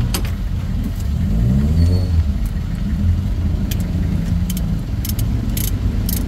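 Mitsubishi 4D56 four-cylinder diesel engine running with its valve cover off and rocker arms exposed. Its speed rises and falls once about two seconds in, and a run of sharp metallic clicks comes in the second half.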